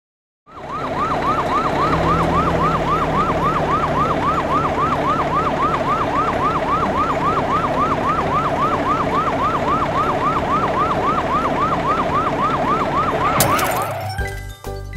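Cartoon fire-truck siren in a fast yelp, quick rising sweeps repeating about three times a second over the rumble of its engine. Near the end the siren cuts off with a sudden splat.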